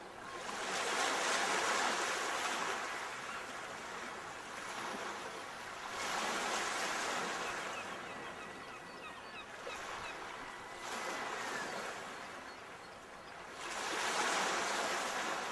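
Waves washing onto a shore, swelling and fading four times.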